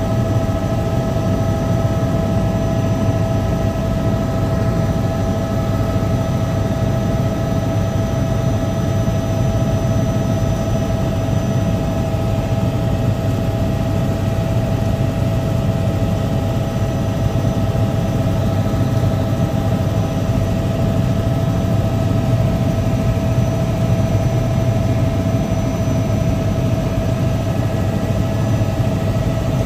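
Helicopter heard from on board: the engine and rotor give a steady drone with a constant whine above it, unchanging throughout.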